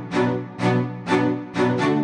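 Instrumental background music with a steady beat, a pitched note or chord striking about twice a second and fading between strikes.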